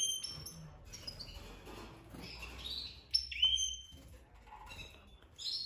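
Caged finches chirping: a handful of short, high calls, some sweeping up in pitch, every second or so.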